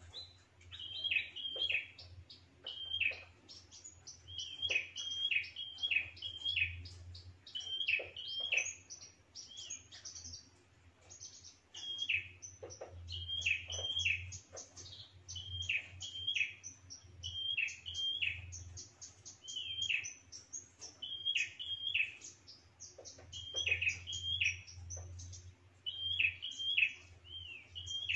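A prenjak calls continuously: sharp, steeply falling chirps given in quick clusters of two to four, about once a second. A low hum sits underneath.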